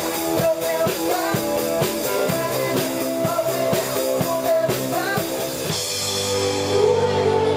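Rock band playing with drum kit, guitar and singing; about six seconds in the drum beat stops and a held chord rings on.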